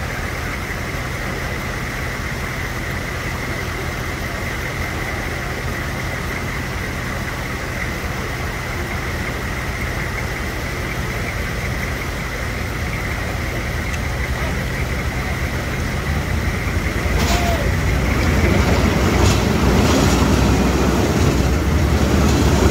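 Military Humvee engines running steadily in a flooded river, under load as they pull a cargo truck through the water, over the noise of flowing water and a thin, steady high-pitched tone. About two-thirds of the way in, the engine rumble grows louder and deeper, and a few sharp knocks follow.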